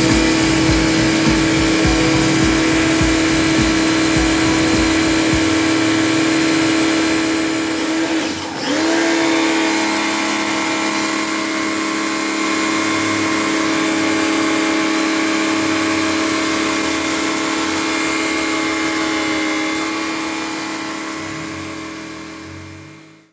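Maxipro MX-301 portable pressure washer's motor and pump running with a steady whine, with the hiss of its water jet. About eight seconds in, the whine briefly drops in pitch and then comes back up. It fades out near the end.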